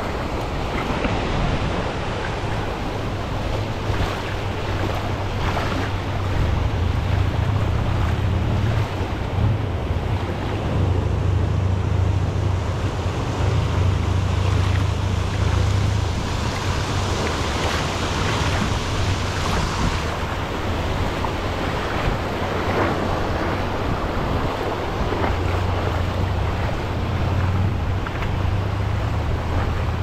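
Ocean surf breaking and washing up over the shallows, a continuous hiss that swells and ebbs with each wave. Wind buffets the microphone through most of it as a low, fluttering rumble.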